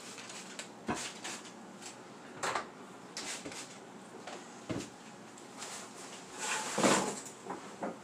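Handling sounds at a countertop microwave: scattered clicks and knocks as its door is opened, and short hissing bursts from a trigger spray bottle of all-purpose cleaner being sprayed and wiped. The loudest burst comes near the end.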